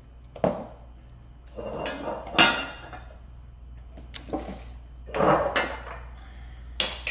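Kitchen handling noise: a lidded jar set down on the counter and utensils moved about, a handful of separate knocks and clinks, the loudest about two and a half seconds in.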